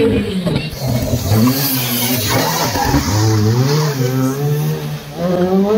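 Rally car engine revving hard through the stage, its note rising and falling repeatedly with throttle and gear changes.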